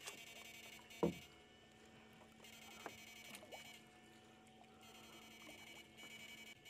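Faint background sound: a high trilling that comes and goes in spells of about a second, over a faint steady low hum, with one short falling sound about a second in.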